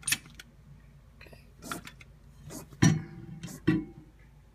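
Zep Microwave Miracle cleaner sprayed onto a microwave in several short bursts, the loudest ones about three seconds in.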